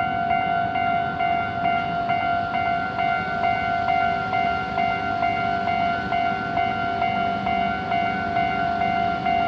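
Japanese railway level-crossing electronic warning bell ringing steadily, a ringing clang repeating about twice a second, with a low rumble underneath that grows near the end.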